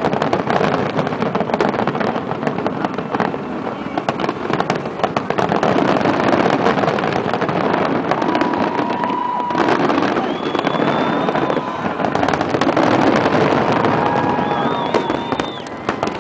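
Fireworks display: many shells bursting at once in a dense, continuous crackling with sharp bangs throughout. A few thin, steady whistles sound over it in the second half.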